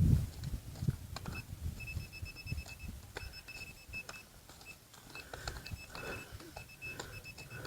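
Handheld metal-detecting pinpointer sounding a high, steady beep that switches on and off in stretches as it is probed around a target in the dig hole. Scattered clicks and low knocks of soil being handled, strongest in the first second.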